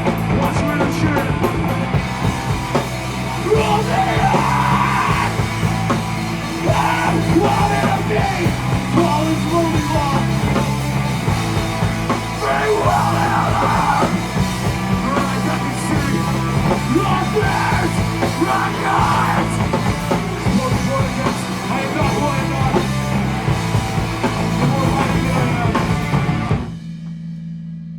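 Live rock band playing a loud, heavy song with guitars, drums and yelled vocals. The song stops sharply near the end, leaving a steady low amplifier hum.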